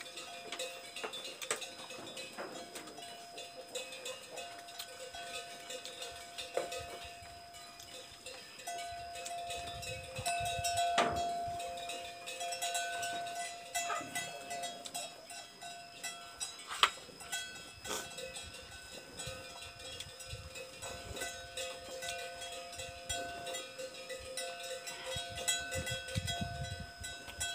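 Bells worn by grazing livestock clanking on and off, their ringing tones lingering and overlapping, with scattered sharp clicks.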